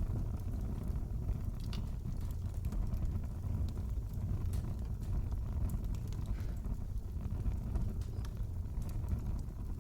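Wood fire in a fireplace crackling: a steady low rumble of flame with scattered sharp pops and snaps.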